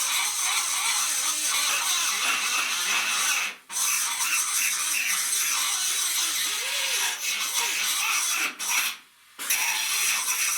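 Die grinder with a fresh bit grinding down a high weld bead on car sheet metal: a steady high-pitched whine and grinding hiss. It drops out briefly about three and a half seconds in and again for about half a second near the end.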